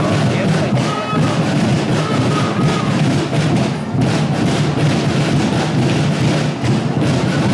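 Music with a drum beat.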